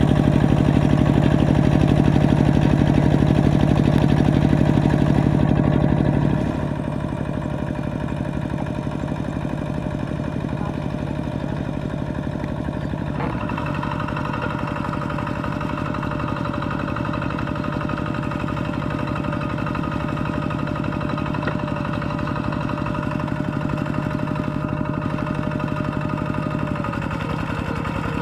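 Kubota RT120 single-cylinder diesel engine of a walk-behind two-wheel tractor running steadily while the tractor works through a flooded rice paddy. It is loud at first and drops to a lower, steady level about six seconds in.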